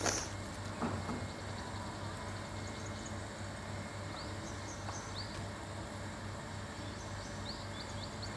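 Open-air ambience: scattered short, high, rising bird chirps over a steady low hum, with a light knock at the very start and another about a second in.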